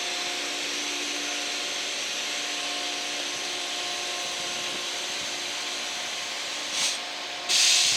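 Steady engine hum holding several constant tones, with no change in speed. Near the end a short, loud hiss rises over it.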